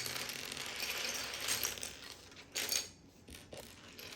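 Small plastic building bricks clattering and clicking as they are handled and sorted, with a sharper clatter about two and a half seconds in.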